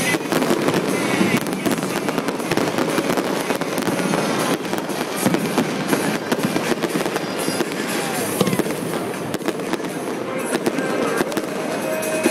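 Aerial fireworks bursting and crackling without a break: a dense, fast run of sharp pops and crackles.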